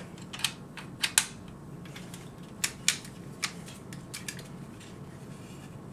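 Hard plastic parts of the Fans Hobby MB-08 Double Evil transforming figure clicking as its chest panels are handled and pressed shut. There are scattered sharp clicks, a pair a little after a second in and another pair near three seconds, with none after about four and a half seconds.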